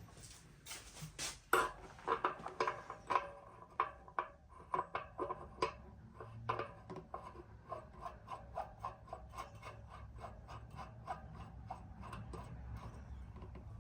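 Light metal clinks and rattles from bicycle parts or tools being handled, a quick run of short knocks with a faint ring, loudest in the first few seconds, then lighter at about three a second.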